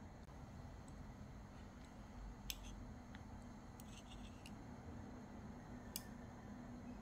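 Stainless-steel chopsticks clicking against a metal spoon: one sharp click about two and a half seconds in, a little cluster of lighter clicks around four seconds, and another click near the end, over a low steady hum.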